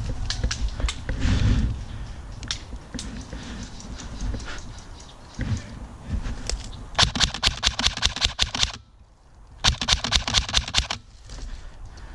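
Airsoft gun firing two rapid bursts of shots, several a second, each lasting a second or two, the first about seven seconds in. Before them there is scattered rustling and knocking.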